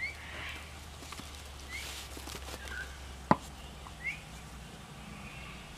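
Faint short rising chirps from an animal, repeating every second or two, with a single sharp click about three seconds in.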